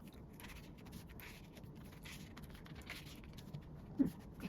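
Faint handling sounds: photocards and plastic binder sleeves rustling and scraping lightly as cards are slid into the pockets, with a soft knock about four seconds in.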